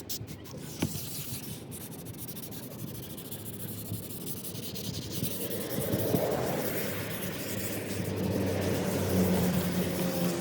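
Sandpaper rubbing on a plastic headlight lens, getting louder about halfway through.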